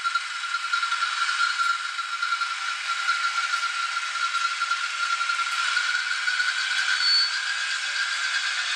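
N-scale model diesel locomotive and its tank wagons running over the track: a steady motor whine with the wheels rattling on the rails, growing slightly louder as the train comes closer.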